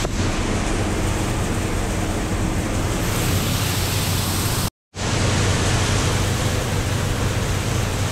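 Grain handling machinery running steadily as corn is unloaded from a truck into a pit and carried up the grain leg: a loud hiss over a low hum. It drops out abruptly for a moment about five seconds in, then carries on the same.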